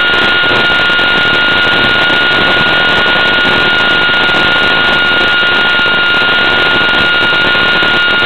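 Electric motor and propeller of a Dynam Hawk Sky RC plane running at steady cruise throttle, picked up by the onboard camera microphone and sent over the analog video link: a loud steady rush of prop and wind noise with a constant high motor whine.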